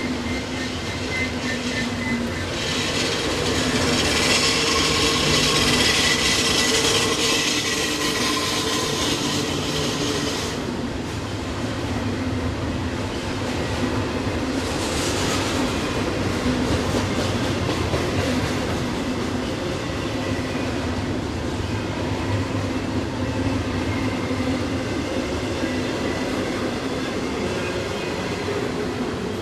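Long Norfolk Southern double-stack container freight train rolling past downgrade, its cars rumbling and clattering over the rails, with two spells of high-pitched wheel squeal in the first half.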